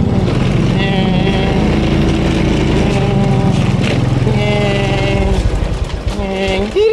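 Honda automatic scooter's single-cylinder engine running at low speed, its low pulse turning uneven and weaker about five seconds in as the scooter slows to a stop.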